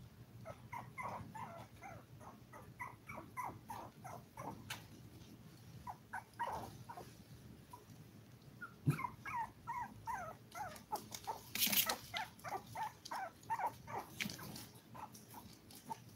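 Five-week-old toy poodle puppies whimpering and yipping in rapid runs of short, high, falling squeaks, in two bouts. A brief scratchy burst of noise comes partway through the second bout.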